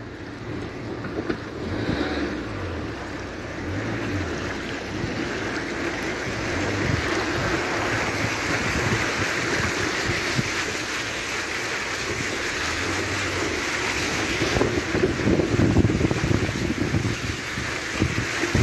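A car driving through floodwater, its tyres churning and spraying the water in a steady rushing wash, with wind buffeting the microphone.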